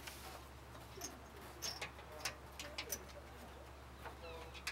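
Light clicks and knocks as an all-aluminum radiator is pushed and lined up into its mounts in a car's engine bay. A bird calls faintly near the end.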